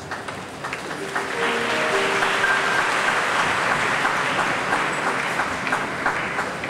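Large crowd applauding, the clapping swelling about a second in and easing near the end, with faint instrumental music underneath.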